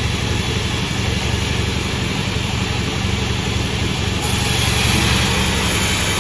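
Sawmill engine running steadily. About four seconds in, a louder high hiss sets in over it.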